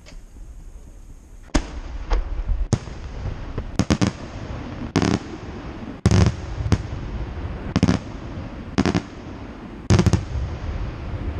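Aerial firework shells bursting in a fireworks display, about ten loud bangs spread over nine seconds after a quiet first second and a half, with a low rumble between them.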